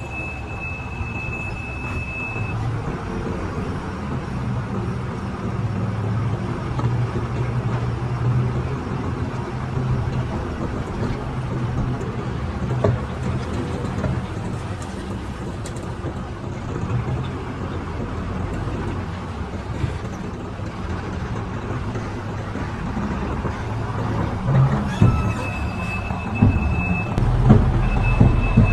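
Heavy construction machine's diesel engine running steadily under load, a low rumble throughout. A thin steady high whine sounds at the start and again near the end, and a few knocks are heard near the end.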